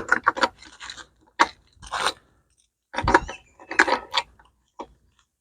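Small metal parts being handled and worked on a bench: a series of short clinks, rattles and scrapes with pauses between them.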